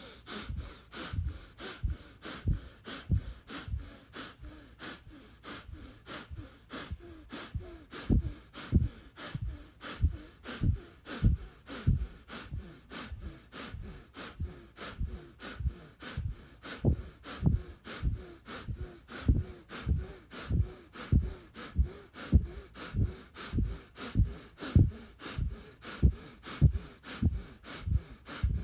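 Rapid, forceful breathing through the nose: "power breath" breathwork, each breath a forced inhale and a forced exhale, in a quick steady rhythm of about one and a half breaths a second.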